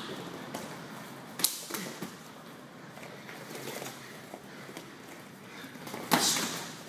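Punches and blocks landing in light sparring. There is a sharp slap about a second and a half in, a louder one near the end, and a few lighter taps between.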